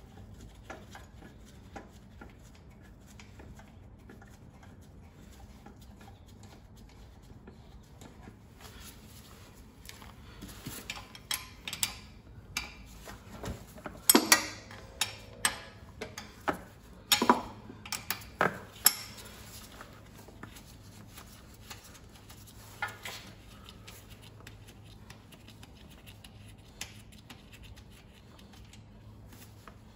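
Metal hand tools and loose engine parts clinking and knocking as a small pressure-washer engine is taken apart. There is a scattered run of sharp clinks in the middle, the loudest about halfway through, and a few more after that.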